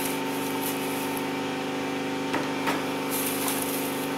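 Dry grass and debris of a mouse nest rustling and crackling as it is picked at and pulled out of an engine-bay tray by hand, with a couple of light clicks about two and a half seconds in. A steady machine hum runs underneath.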